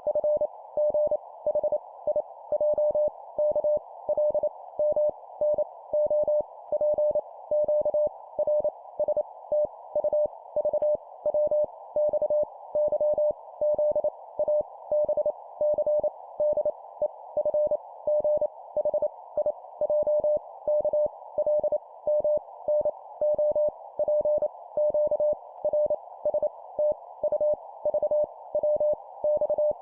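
Morse code (CW) sidetone keyed at 25 words per minute, sending letters as a single mid-pitched beep in short dots and longer dashes, over a steady band of hiss.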